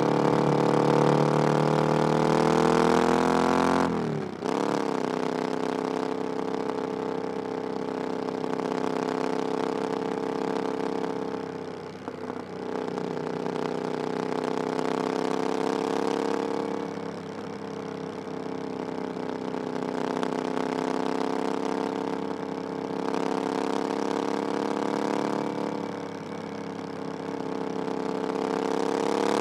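Triumph Bonneville Scrambler 900's 900cc parallel-twin engine running through an aftermarket "VW pipes" exhaust while riding. The engine note climbs for the first few seconds, drops sharply about four seconds in, then runs at fairly steady revs with several brief dips and swells, and climbs again near the end.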